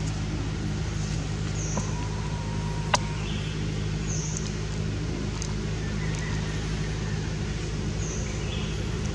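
A steady low engine hum, like a motor vehicle running nearby, with short high bird chirps every couple of seconds and one sharp click about three seconds in.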